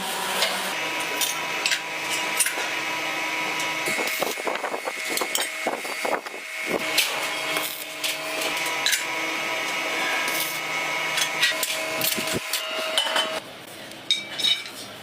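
Workshop metalworking noise: irregular sharp metal knocks and taps over a steady machine hum, which drops away near the end.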